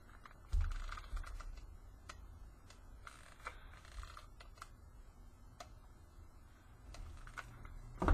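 Faint scattered clicks and taps from handling a hot glue gun and a small metal ornament cap while gluing, with a low thump about half a second in and a louder thump at the very end.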